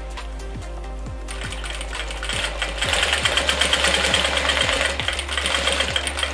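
Industrial lockstitch sewing machine stitching bias tape onto clear plastic sheet, a rapid run of needle strokes that starts about a second in, is strongest in the middle and eases off near the end.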